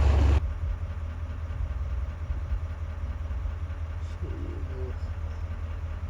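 Steady low rumble of a vehicle's engine running, heard from inside the vehicle. A much louder low rumble cuts off abruptly just under half a second in.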